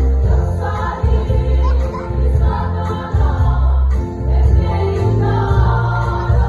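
Women's choir singing a Mizo gospel hymn in unison over a bass-heavy instrumental accompaniment.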